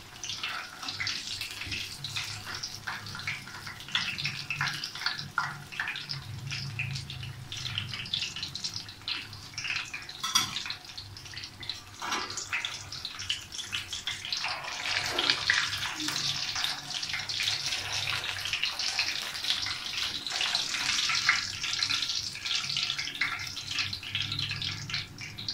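Besan-battered surmai fish deep-frying in hot oil in an iron karahi: a steady sizzle full of small crackles and pops, somewhat stronger past the middle.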